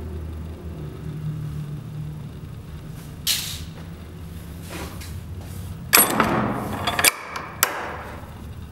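A steady low rumble, with a short hiss about three seconds in and a louder rushing hiss from about six seconds that cuts off sharply, followed by one more brief hiss.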